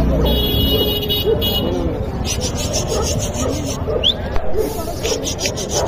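Background voices with repeated bursts of rasping, rubbing noise.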